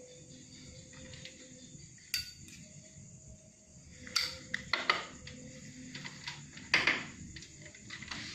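A few short, sharp sounds over a quiet background: one about two seconds in, a cluster around four to five seconds, and the loudest about seven seconds in.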